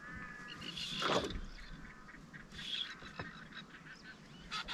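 Waterbirds giving a few nasal honking calls, the loudest about a second in.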